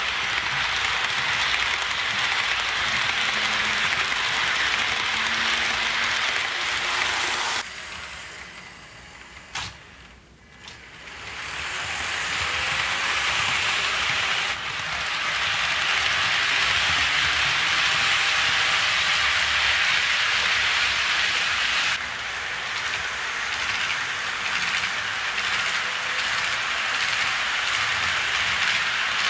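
HO scale model freight train rolling past on sectional track: a steady, hissing rattle of the wheels on the rails. About a third of the way in it drops much quieter for about four seconds, with one sharp click, then comes back as loud.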